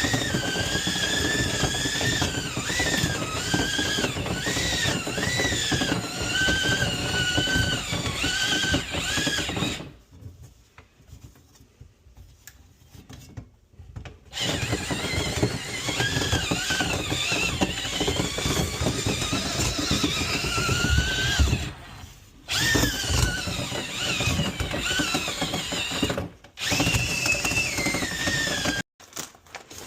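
Power drill running in long bursts, its whine wavering up and down in pitch as the load changes. It stops for a few seconds about a third of the way in, then again briefly twice near the end.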